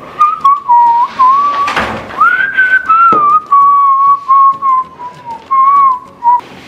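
A person whistling a slow, wandering tune, one clear note at a time that slides between pitches, with a single knock about three seconds in.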